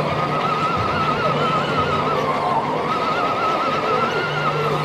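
Electric motor and gear drive of a Cross RC scale crawler whining as it drives, the pitch wavering up and down, over steady background noise of a large hall.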